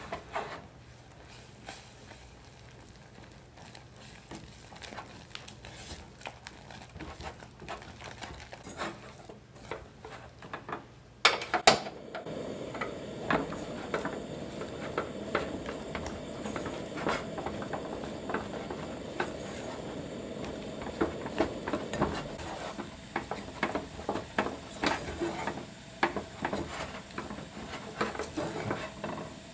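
Kitchen utensil stirring and tapping in a pot or bowl, with scattered light clicks; a sharp clatter about eleven seconds in, after which a steady low hiss runs under quick, repeated stirring clicks.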